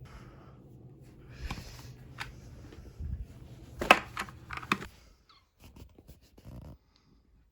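Hands handling and setting a cube mat and cubes in place on a shelf: rustling with a few sharp clicks and knocks, the loudest about four seconds in, then a few faint taps.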